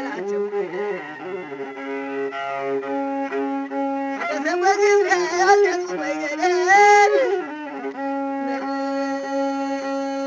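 Ethiopian azmari music on masinko, the one-string bowed fiddle: an ornamented melody with slides over a steady held note, which carries on alone between phrases.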